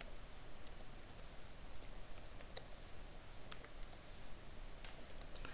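Keystrokes on a computer keyboard: short, sharp clicks a few at a time at irregular intervals as code is typed.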